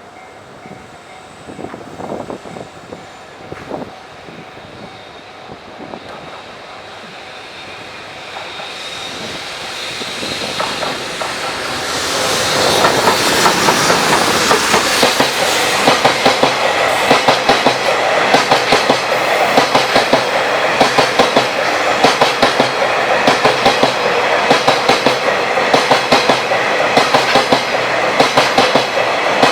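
A JR Freight train approaching and passing close by: the sound grows from about eight seconds in, and from about twelve seconds the wagons' wheels clatter rapidly and steadily over the rail joints.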